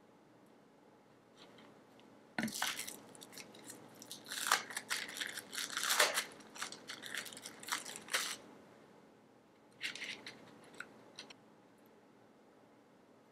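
Thin plastic film crinkling and crackling as it is peeled off a processed cheese slice. A sudden dense run of crackling lasts about six seconds, and a shorter burst of crinkling follows a couple of seconds later.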